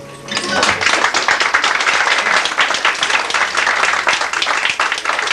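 Small pub audience clapping and applauding at the end of an acoustic guitar song. The applause starts about a third of a second in and keeps up steadily.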